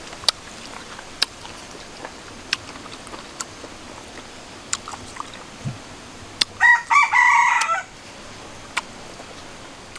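A rooster crows once, about six and a half seconds in, for just over a second. Sharp lip-smacking and chewing clicks come and go throughout.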